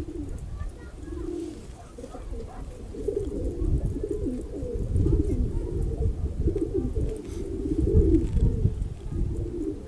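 Domestic pigeons cooing over and over in repeated throaty phrases, getting louder in the second half. A puffed-up male turning and bowing among the others suggests courtship cooing. A few faint chirps sound early on.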